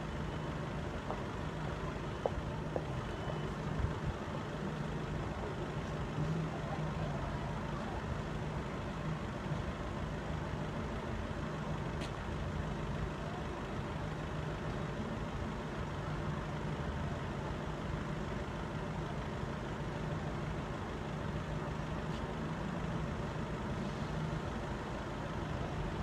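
Steady low hum of a road vehicle engine idling, over a background rumble of outdoor traffic.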